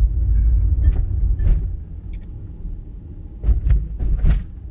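Car driving slowly, heard from inside the cabin: a steady low rumble of engine and tyres on a wet concrete floor, with several sharp knocks and clicks, the strongest cluster a little over three seconds in.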